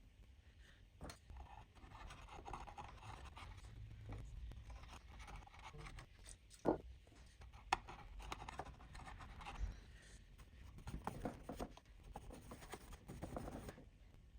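Faint scraping and rubbing as old, hardened component glue, softened with carburettor cleaner, is worked off an amplifier circuit board. Two sharp clicks come about halfway through.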